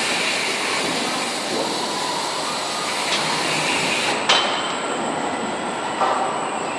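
Steady din of factory-floor machinery, with a sharp metallic clank about four seconds in and a lighter knock near the end.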